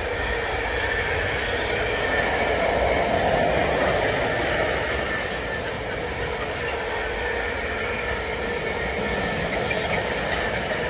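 Container freight train's wagons rolling over a river bridge: a steady rumble of steel wheels on rail with a faint, steady whine above it.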